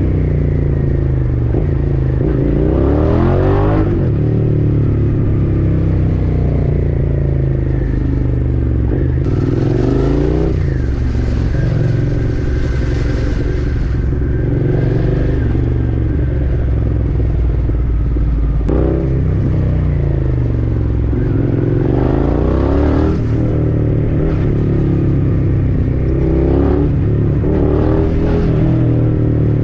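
Suzuki SV650's V-twin engine running under way, its pitch climbing again and again as it accelerates, then dropping at each gear change. A steady rush of wind and road noise runs underneath.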